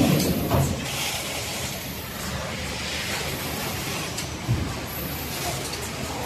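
Automatic case-packing line running: steady machine noise with dull mechanical thumps at the start, about half a second in and again about four and a half seconds in.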